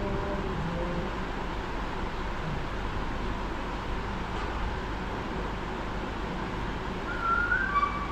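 Steady background noise of the room, with a brief high chirp near the end.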